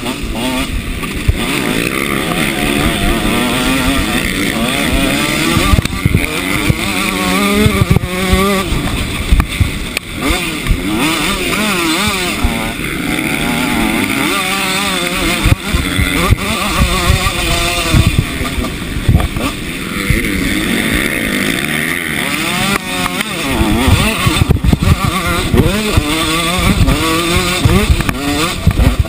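Motocross bike's engine heard on board at race pace, revving up and dropping back over and over, with wind rumbling on the microphone.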